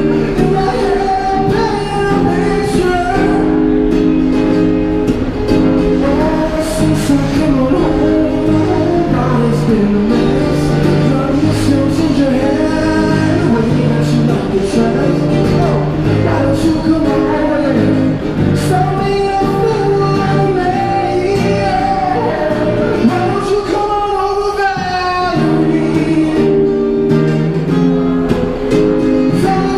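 A man singing a song into a microphone while strumming a Yamaha acoustic guitar.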